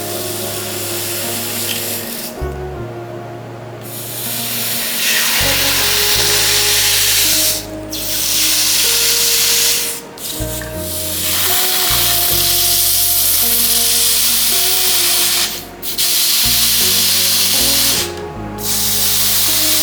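Loud, even hissing noise that breaks off briefly several times, the longest break about two seconds in, over background music with a slow stepping bass line.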